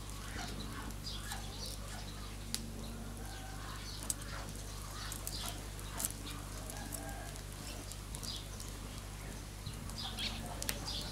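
Birds chirping on and off, with a few sharp clicks over a steady low hum.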